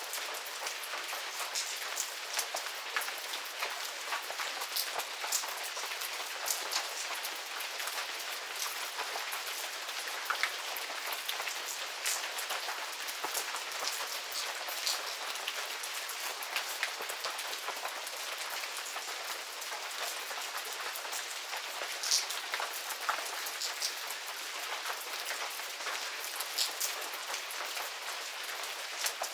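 Steady medium rain falling in a garden, a constant hiss with many individual drops ticking and pattering on nearby surfaces.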